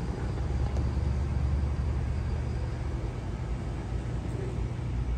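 Outdoor city background noise: a steady low rumble with no distinct events.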